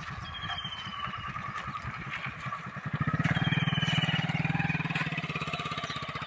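An engine running with a steady, fast pulsing beat, growing louder about three seconds in. Two short high trills, like a bird chirping, sound over it.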